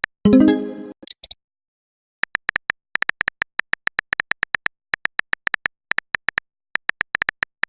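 Runs of short electronic beeps at one steady pitch, about six a second, broken by brief pauses. About a quarter second in, a single louder, lower pitched sound effect cuts in and fades within a second.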